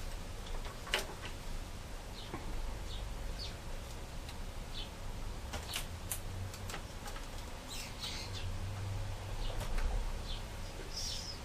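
Scattered light clicks and small squeaks of a replacement laptop LCD panel and its plastic lid frame being handled and fitted together, over a low steady hum.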